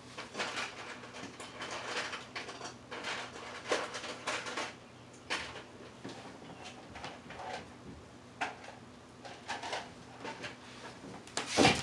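Intermittent light handling sounds of a tarantula enclosure and its water dish being worked on: short scrapes, taps and rustles with quiet gaps between them, and a louder clunk right at the end.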